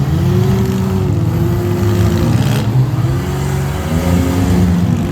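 Several minivan engines revving, their pitch rising and falling, as the demolition-derby vans push and shove each other.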